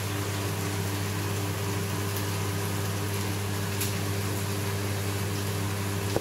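Saltwater aquarium pumps running: a steady low electric hum with a few higher tones over a constant hiss of circulating water.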